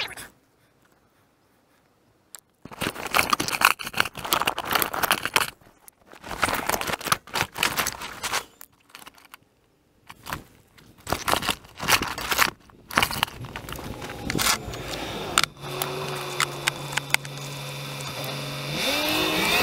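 Bursts of clinking, rattling and scraping from tools and parts being handled under a pickup during an oil change, starting after about two seconds of silence. A steady low hum runs for a few seconds near the end.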